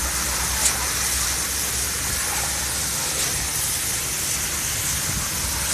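Concrete pump engine running steadily, a low drone with a constant hiss over it as concrete is pumped into the slab, and one sharp tick under a second in.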